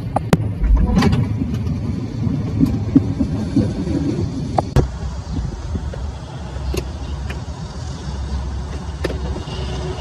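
Sharp clicks of a minivan's power-seat control buttons, a few times, over a low, uneven vehicle rumble.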